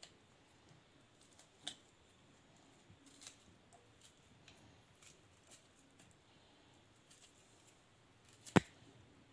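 Faint scraping and small clicks of a kitchen knife peeling and trimming a wet orange, with one sharper click early on and a loud sharp click near the end.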